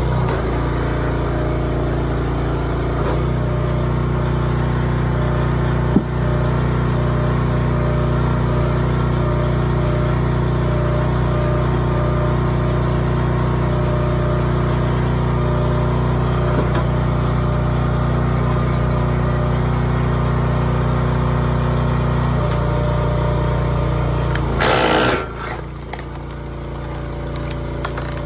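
Small gas engine of a hydraulic log splitter running steadily, its note shifting about three seconds in as the ram comes under load pushing through a tough log. Near the end a loud, brief cracking burst as the wood gives way, then the engine runs lighter.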